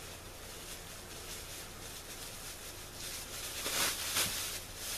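Clear plastic bag crinkling and rustling as it is pulled open around a plush toy, faint at first and loudest between about three and four and a half seconds in.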